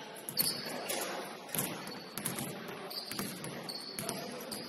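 Several basketballs bouncing on a hardwood gym floor in an irregular patter of overlapping thuds, with short high squeaks of sneakers on the court.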